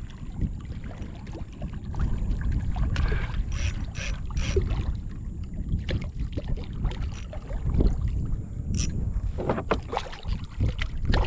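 Water sloshing around a kayak and a low rumble of wind on the microphone, with scattered short clicks and knocks, while a hooked redfish is played close to the boat.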